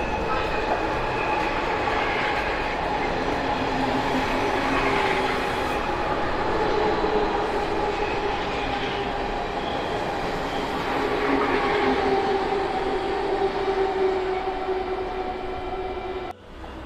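RER B electric multiple-unit train running past along the platform: a steady rail rumble with wheel clatter and a held motor whine in two pitches that drift slightly. The sound drops suddenly near the end to a much quieter background.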